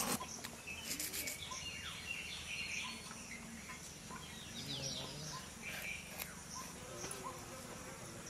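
Birds chirping and insects buzzing outdoors, fairly quiet. About a second in there is a short run of rapid scrapes, a curved blade scaling and cutting small fish.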